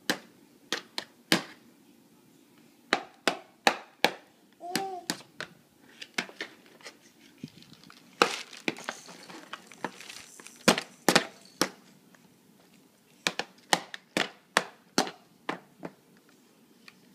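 Hard plastic toy pieces on a baby activity center clicking and knocking as a baby handles and bangs them: irregular sharp clicks, several close together, in bunches.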